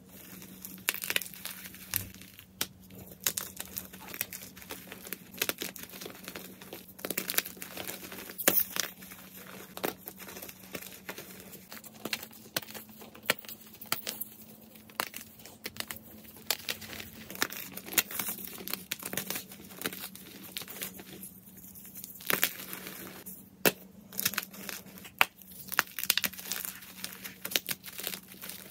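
Fresh white gym chalk blocks crushed and crumbled in the hands over a bed of chalk powder: dense, irregular crunching and crackling, with sharper snaps as pieces break apart.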